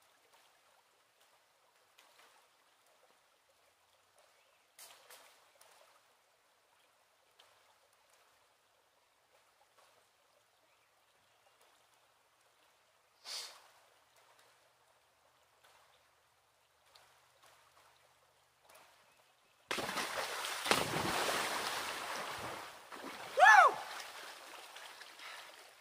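Water splashing loudly as a person wades quickly into a creek, starting about twenty seconds in and fading over a few seconds, with a short whooping yelp partway through. Before that there are only faint scattered small sounds.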